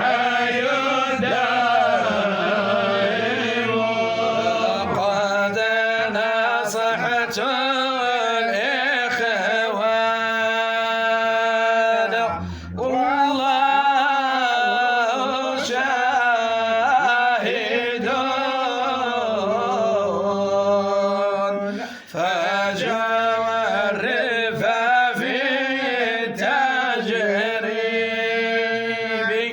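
A man chanting a Sufi devotional poem in Arabic, a qasida, in long, drawn-out melodic phrases, with short breaks between phrases about twelve seconds in, about twenty-two seconds in and at the very end.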